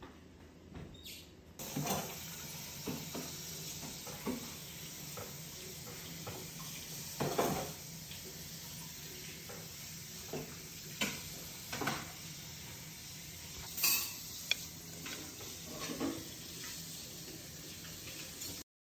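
Metal fork clinking and scraping on a ceramic plate, a handful of separate clinks spread out over a steady low hiss and hum.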